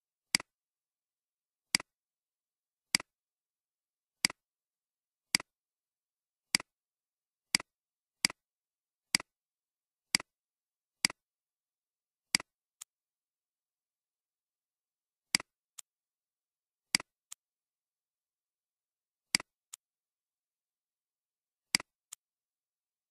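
Computer mouse-button clicks, each a sharp click followed by a fainter release click, at roughly one-second intervals, with a pause of about three seconds partway through.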